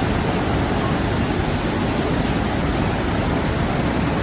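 Montmorency Falls, a tall waterfall, with its rushing water making a steady, even noise that does not change.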